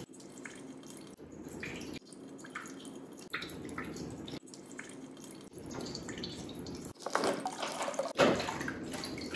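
A thin stream of salt water trickling and dripping into a glass baking dish as it is squeezed out of a plastic bottle and through a coffee filter. The sound comes in several short cut-together stretches and gets louder after about seven seconds.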